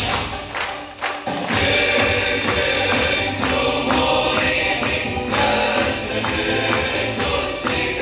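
Upbeat song with a group singing and a steady beat, with hands clapping in time. The music dips briefly about a second in.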